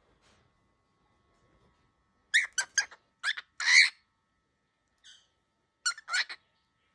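Baby cockatiel giving short, shrill squawking calls in two bursts: a quick run of about five starting some two seconds in, then two more near the end. These are the agitated calls of an upset chick.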